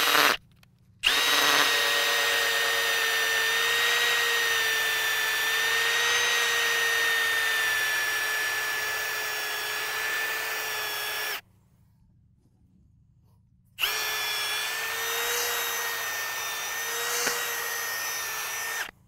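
Power drill spinning a 7/8-inch auger bit down into field soil, with a steady motor whine. A short burst comes first, then a run of about ten seconds, a pause of about two seconds, and a second run of about five seconds.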